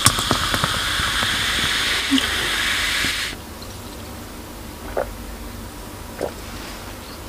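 Coca-Cola poured from a can into a glass mug: a fizzing hiss with small splashes and clicks for about three seconds that stops suddenly. Then a couple of soft gulps as the cola is drunk.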